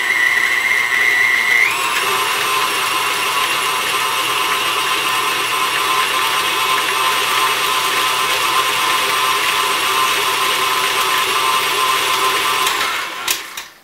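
Electric tilt-head stand mixer running, beating a thick cream cheese dip mixture. Its motor whine steps up in pitch about two seconds in as the speed is turned up, runs steadily, then winds down as it is switched off near the end.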